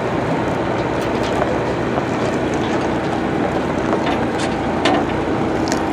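Heavy machinery engine running steadily, with a few faint clicks.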